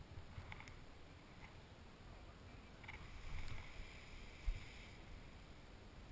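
Wind buffeting the camera microphone as a low, uneven rumble, with rustling and light clicks from a paraglider pilot's gloves, risers and brake toggles being handled. A louder rustle comes around three to four seconds in, and a single knock about four and a half seconds in.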